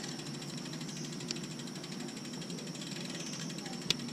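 A pedal being unscrewed from a bicycle crank arm with a 15 mm wrench: quiet metal handling, with a small click about a second in and a sharper click a little before the end.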